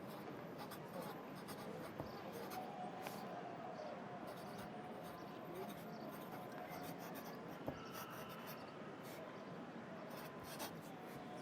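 Pencil writing on paper, quick irregular scratching strokes, over a steady bed of city traffic ambience. One sharp click about seven and a half seconds in.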